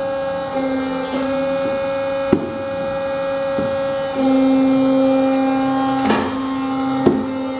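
Locatelli Monomatik TP2 machine running: a steady motor hum and whine that swells for a couple of seconds midway, with four sharp clunks from its mechanism.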